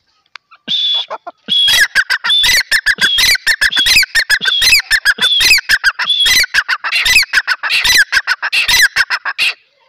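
A grey francolin (teetar) calling: a single note, then from about a second and a half in a loud, rapid series of harsh repeated notes that runs on for about eight seconds and stops suddenly near the end.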